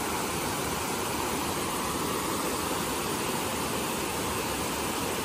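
Water pouring steadily over a low river weir, an even rushing noise.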